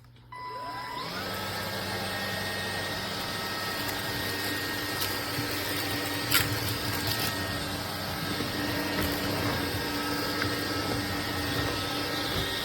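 Cordless stick vacuum switching on, its motor whine rising as it spins up over about a second, then running steadily. A single sharp click about halfway through.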